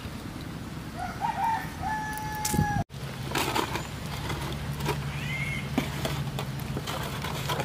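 A rooster crowing once, the call rising and ending in a long held note, cut off abruptly about three seconds in.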